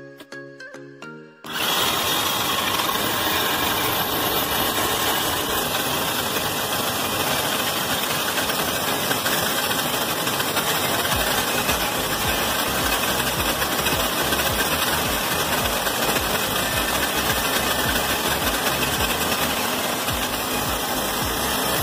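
Gamma benchtop band saw running and cutting a strip of wood: a loud, steady motor-and-blade noise that starts abruptly about a second and a half in. Before it, a short chiming music tune.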